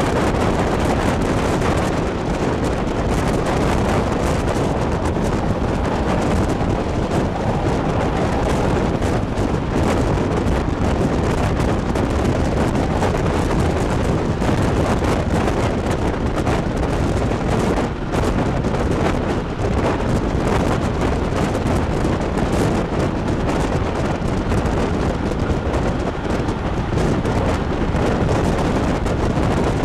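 Steady wind rushing over the microphone held out of the window of a moving passenger train, with the train's running noise on the rails beneath it.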